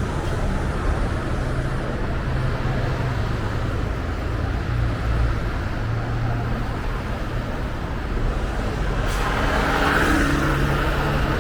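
City road traffic: vehicle engines running with a steady low hum and rumble, swelling louder about nine seconds in as a vehicle passes close. No siren is sounding.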